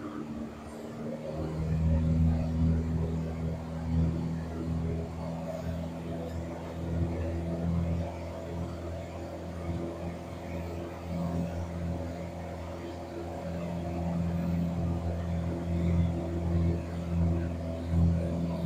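Engine and propeller drone of a Piper PA-28 Warrior single-engine light aircraft heard inside the cabin in cruise: a steady low drone from its four-cylinder piston engine, which gets louder about a second and a half in and then holds.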